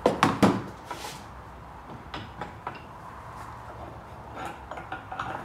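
Cast-iron hand plane being handled at a wooden workbench and vise: two loud knocks right at the start, then scattered quieter clicks and small knocks, more of them near the end.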